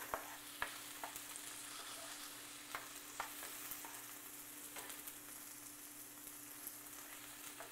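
Chopped onion, garlic and green chiles sizzling gently in olive oil in a nonstick frying pan, a steady soft hiss broken by scattered light clicks of a spatula against the pan.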